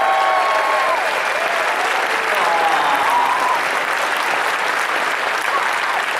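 Large audience applauding steadily, with a few voices calling out over the clapping.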